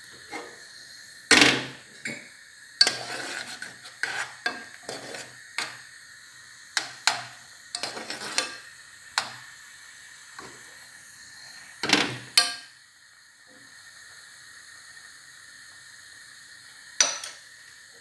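Metal spoon clinking and scraping against an aluminium saucepan of simmering milk, in irregular knocks that are loudest about a second in and again around twelve seconds in, over a steady faint hiss.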